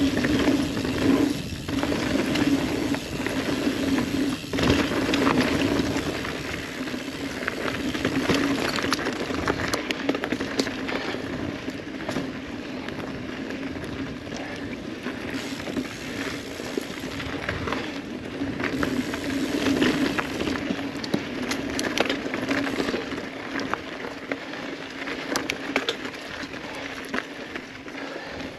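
Ibis Ripley mountain bike rolling fast down a dirt singletrack: a steady hum of knobby tyres on dirt, strongest in the first several seconds, with frequent clicks and rattles from the bike over roots and bumps.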